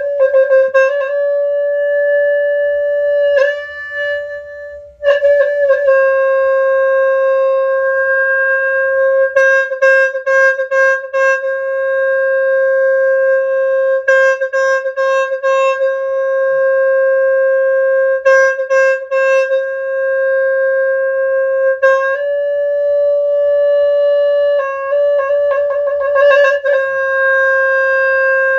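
A Khmer horn holding one long, loud, reedy note almost without a break, ornamented every few seconds by quick fluttering trills. It dips briefly about four seconds in, steps slightly higher near 22 seconds and drops back near 25 seconds.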